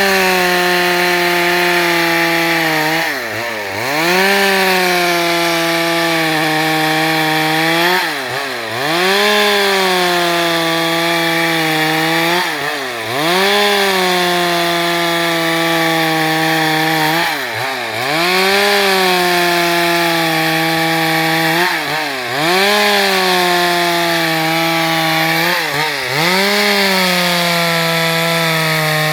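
Stihl MS 382 two-stroke chainsaw running at high revs while sawing wood. About every four to five seconds, six times in all, its pitch briefly drops and climbs back.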